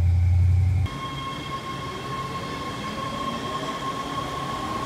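Subway train running, a steady high-pitched whine over a rumbling ride noise. Under it, a loud low hum fills the first second before cutting off.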